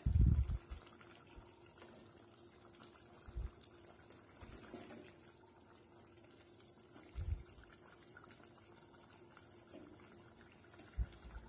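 Chicken curry simmering in a clay pot, a faint bubbling, stirred with a spatula that gives a few dull, low knocks against the pot.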